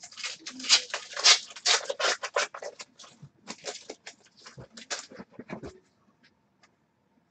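A hockey card pack's wrapper being torn open and crinkled, with cards slid out and handled. It starts as a rapid run of crackling, thins to scattered ticks after about three seconds, and stops near six seconds.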